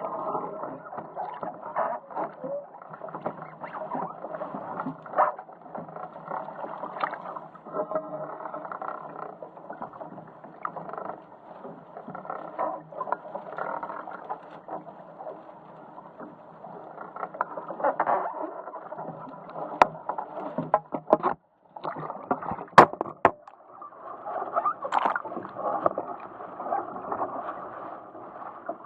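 Water rushing and splashing against the hull of a Musto Performance Skiff under sail, picked up by a camera on board. A few sharp knocks come about two-thirds of the way in, around a brief cut-out in the sound.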